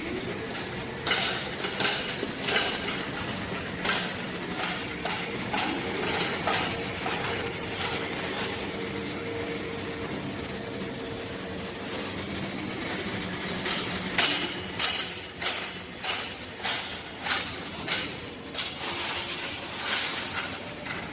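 Elevator guide rail planing line running: a steady machine hum with a held tone, and sharp metallic clanks and knocks over it. In the second half the knocks come regularly, about one and a half a second.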